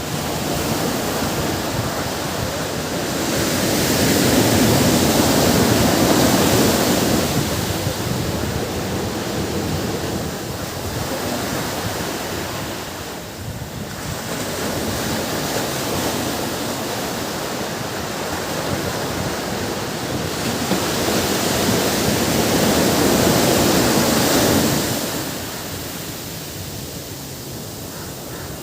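Ocean surf washing onto a beach, a steady rush of breaking waves that swells up twice, loudest a few seconds in and again near the end before it eases off.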